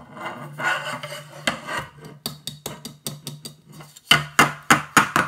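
Carbon bicycle handlebar being handled: a scraping rub, then a run of quick sharp knocks, the loudest four or five near the end.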